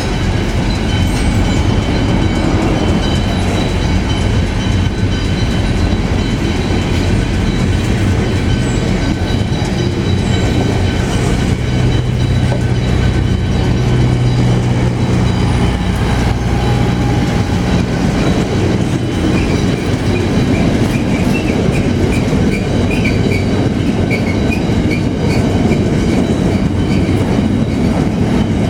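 Pacific National freight train rolling past steadily, a continuous rumble and clatter of wheels on rail with thin high squeals from the wheels.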